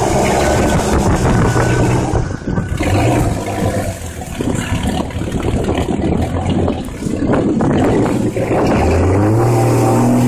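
Jeep Cherokee XJ engine revving as its tires spin in deep mud, the Jeep stuck. The engine pitch climbs and holds high near the end.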